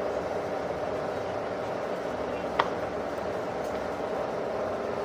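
Steady background rumble with no clear source, and one sharp click about two and a half seconds in.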